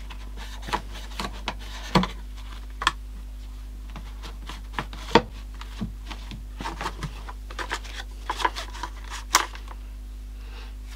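Irregular small clicks and taps of hard plastic being handled: a small screwdriver and cloth working around and wiping the plastic cyclone housing of a Dyson V7 cordless vacuum, over a steady low hum.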